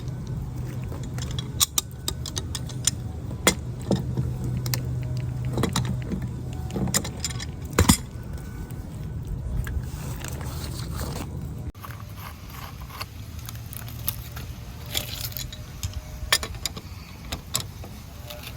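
Metal clinks, knocks and scrapes as a garden hose coupling is worked loose and unscrewed from a hose bib's vacuum breaker, over a steady low hum.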